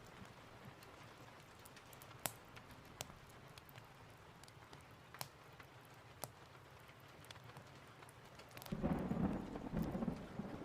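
Steady rain with scattered sharp clicks, then thunder rumbling in near the end.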